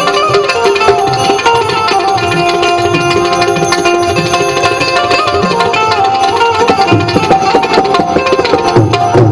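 Harmonium playing a stepping melody over held notes, with tabla keeping a steady beat: an instrumental passage of a Gujarati devotional bhajan.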